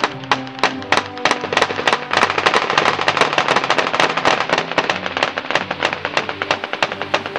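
Several machine guns firing tracer rounds at once: rapid sharp shots that grow into a dense, overlapping rattle about two seconds in.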